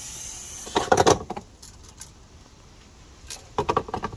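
Sharp plastic knocks and rattles from handling the front storage hatch and compartment of a Sea-Doo FishPro Trophy jet ski: a loud cluster about a second in and another near the end.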